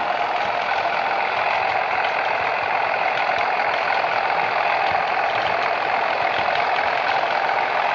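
Sound decoder in a Bachmann Class 37 model locomotive playing the recorded English Electric diesel engine of a Class 37 under power, the 'thrash', running steadily through the model's own speaker as it moves along the track.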